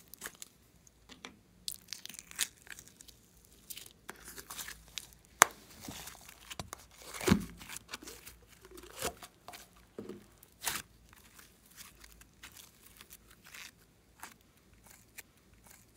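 Slime being squeezed out of a rubber balloon and piled onto more slime: irregular sticky crackles, squelches and pops. A sharp pop comes about five and a half seconds in, and the loudest, fullest squelch about seven seconds in.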